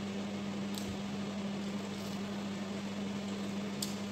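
Steady electrical appliance hum, with two faint clicks of fingers against ceramic bowls, the first about a second in and the second near the end.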